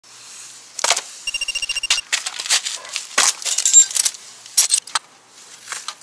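Hand tools clinking and clattering together in a quick irregular run of sharp metallic knocks, with one short ringing tone about a second in.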